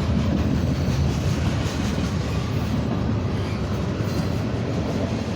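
CSX mixed manifest freight train passing close by: a steady, loud rumble and rattle of wheels on the rails, easing slightly in the second half.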